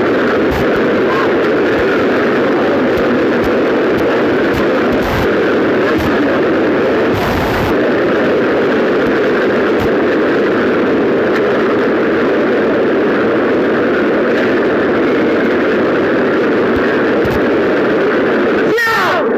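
Dense, steady noise of a very large crowd cheering and shouting, with a couple of brief thumps about five and seven seconds in.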